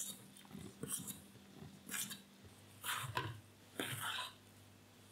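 A spoon stirring flour and water into a shaggy bread dough in a stainless steel bowl, scraping and mixing in strokes about once a second.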